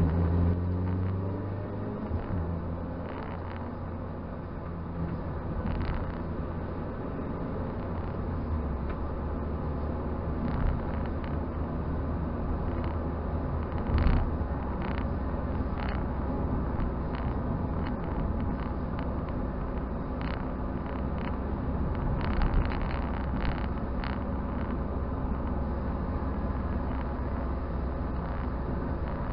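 Toyota Celica driving at a steady speed, heard from inside the cabin: a steady low engine hum with tyre and road noise. Occasional short knocks and rattles break through, the loudest about 14 seconds in.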